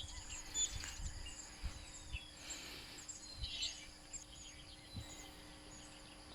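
Faint birds chirping in short high calls over a steady high insect drone, with a few soft low bumps.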